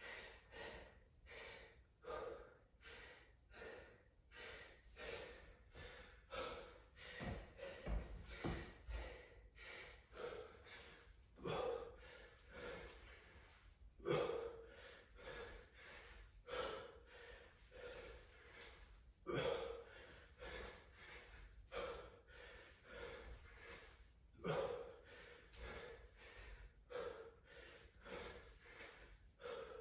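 A man breathing hard and fast, out of breath from exertion during a dumbbell workout. After about ten seconds a louder forceful exhale comes about every two and a half seconds.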